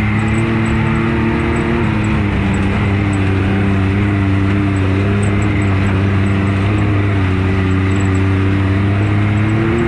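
Can-Am Maverick X3 side-by-side's three-cylinder turbo engine running steadily at cruising speed, heard from on board. Its pitch dips slightly about two seconds in and rises again near the end.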